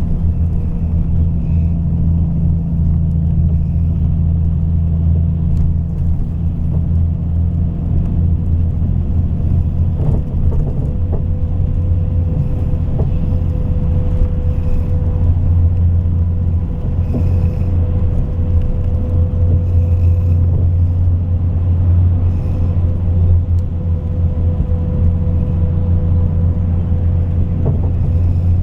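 Scania K420 coach's diesel engine running steadily, a low rumble with no revving.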